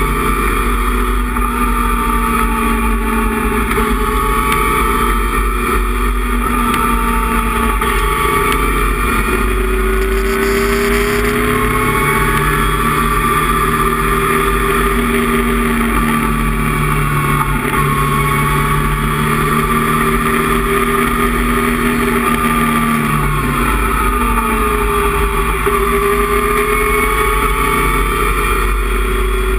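Datsun 260Z's race-prepared 2.6-litre inline-six heard from inside the cockpit at full throttle on track. The engine note climbs slowly and holds high for several seconds on a long straight, dips about three-quarters of the way through as the driver comes off the throttle, then climbs again, over road and wind noise.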